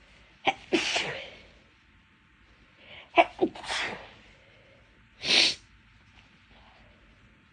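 A person sneezing three times, a couple of seconds apart, each sneeze a sharp, breathy burst. The middle one comes after a short intake of breath with a double catch at its start.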